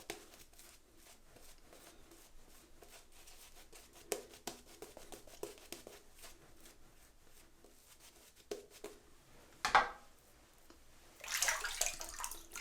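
Synthetic shaving brush whisking soap lather in a shave bowl after water has been worked in: faint wet clicking and squishing, with a sharper, louder swish about ten seconds in and a longer louder stretch near the end.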